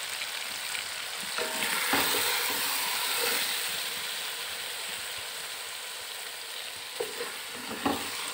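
Chicken and capsicum sizzling as they fry in a metal pot, the hiss swelling about two seconds in and then easing. A wooden spoon stirs through the food, knocking against the pot a few times.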